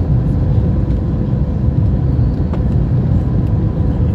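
Steady cabin noise inside an Airbus A321 airliner on landing approach: engine and airflow rumble with a steady hum running through it.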